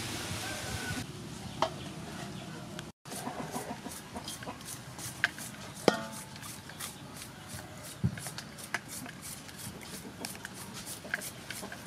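A small knife cutting crisp water spinach stems over a metal basin. From about three seconds in there is an irregular run of short, sharp snips, with chickens clucking in the background.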